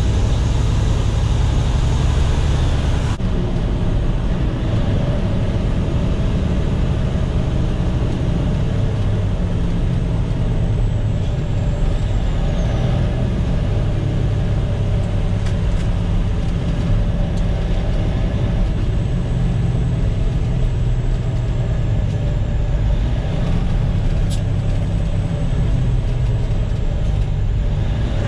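Caterpillar C13 diesel engine of a Kenworth T800 dump truck, heard from inside the cab while driving: a steady low drone whose pitch shifts several times as the truck pulls through its gears.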